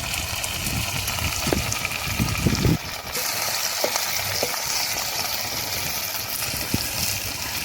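Spices, onion, tomato and tamarind frying in sesame oil in a pan, with a steady sizzle throughout. Scattered clicks and knocks run under it, as the mixture is stirred.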